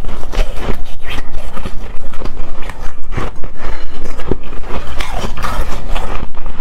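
Hard, frosty shaved ice being crunched and scraped, close up: a dense, irregular crackle with many sharp cracks.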